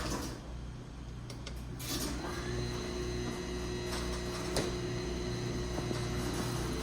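Chamberlain belt-drive garage door opener running, a steady motor hum as it drives the door, with a few sharp clicks; the hum steadies into a clear tone about two seconds in.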